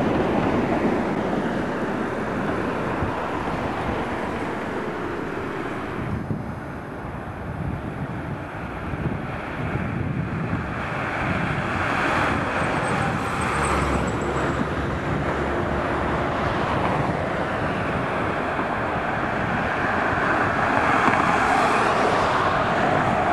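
Street traffic with trams: first a Tatra tram rolling away along the tracks, then passing cars and an approaching Tatra T3 tram, whose noise grows near the end with a steady whine.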